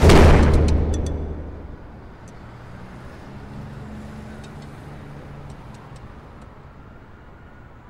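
A sudden deep boom that fades away over about two seconds, followed by a low steady rumble with a few faint ticks.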